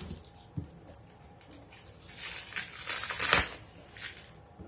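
Scissors working at cardboard packaging: scattered scrapes, rustles and small clicks, the loudest a sharp knock a little over three seconds in.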